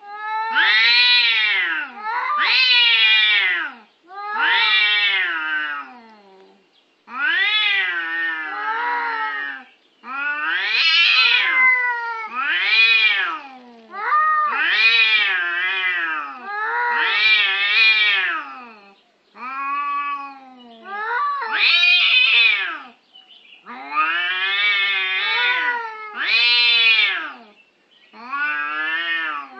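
An animal calling over and over in long, drawn-out wails, about thirteen times, each rising and falling in pitch.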